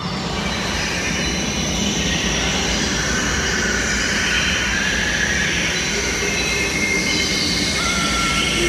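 Opening of a colour guard show's recorded soundtrack over the arena sound system: a loud, steady rushing drone with thin high held tones over it. It starts suddenly and swells slightly.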